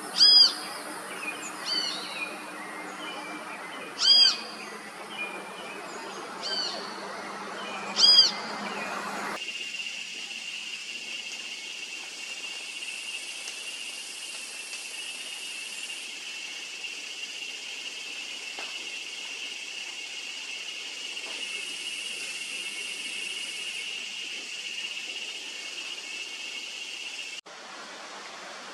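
Birds calling: five loud, pitched, arching calls repeated every two seconds or so over a steady high-pitched buzzing chorus. The calls stop abruptly about nine seconds in, leaving the steady buzz, and the background changes abruptly again near the end.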